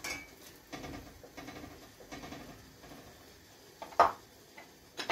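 Kitchen ladle handled at a steamer pot: a light knock as it comes out of the pot at the start, then a sharp clack as it is set down on the counter about four seconds in.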